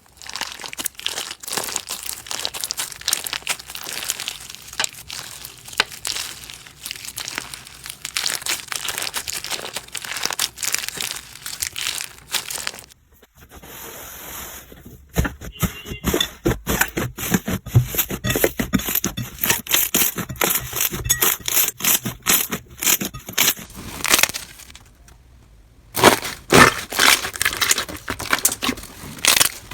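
Slime being squeezed and pressed, with dense crackling and popping clicks, in separate clips that break off about 13 seconds in and again briefly near 25 seconds.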